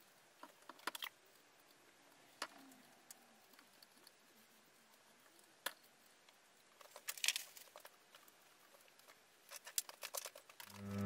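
Scattered light clicks and taps in small clusters, from hands working on the head of a Dore Westbury milling machine. Bowed-string music fades in right at the end.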